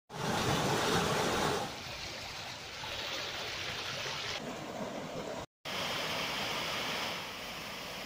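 Rushing water of a rocky mountain stream and small waterfalls, a steady hiss and splash. Several clips are cut together, so the sound changes abruptly a few times and drops out for a moment about five and a half seconds in.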